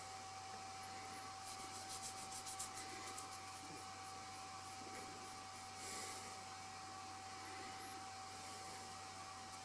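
Faint rubbing of a paintbrush on carved white oak as craft paint is brushed into the letters, with irregular strokes clustered early on. A steady faint tone and low hum run underneath.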